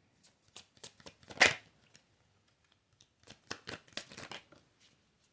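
A deck of oracle cards being shuffled and handled: quick papery snaps and flicks of the cards in two bursts, the loudest snap about a second and a half in.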